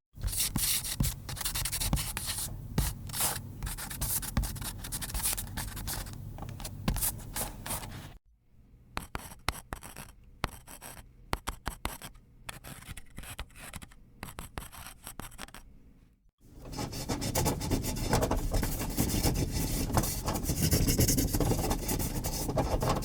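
Pen or pencil writing on paper, a scratching of quick strokes, in three separate takes. The first is dense and continuous. About eight seconds in a lighter take starts, in short broken strokes with pauses between them. From about sixteen seconds a fuller, denser scratching runs on.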